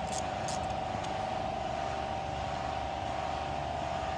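A machine motor running steadily with an even, mid-pitched hum.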